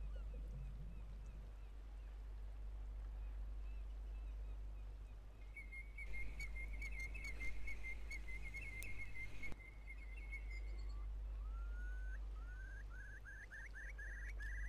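A bird calling: a fast, high trill about halfway through, then a run of short rising calls repeated several times a second near the end, over a faint steady low hum.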